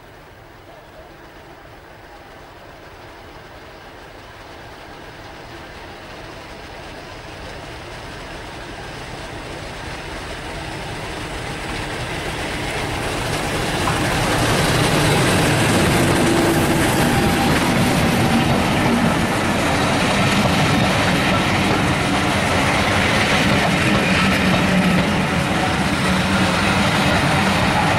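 British Rail Class 50 diesel locomotive, with its English Electric 16-cylinder engine, approaching and growing steadily louder until it passes about halfway through. Its train of coaches then rolls by, the wheels running loudly on the rails.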